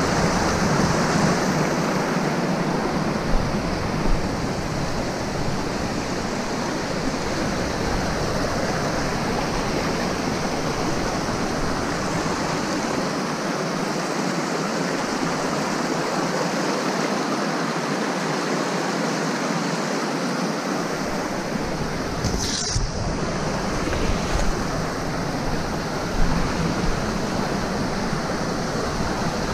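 Mountain creek rushing over rocks and small rapids, a steady close wash of water. A single brief knock about three-quarters of the way through.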